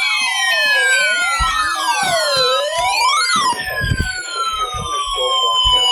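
Siren-like alert sound opening a mock emergency alert broadcast. Several layered tones swoop down and back up about once every 0.8 s while other tones slowly glide downward. The swooping stops about halfway through, and the falling tones carry on to the end.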